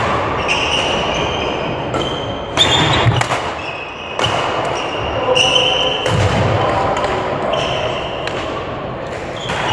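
Badminton doubles rally: sharp racket hits on the shuttlecock and thudding footfalls, with court shoes squeaking on the sports-hall floor, repeated throughout.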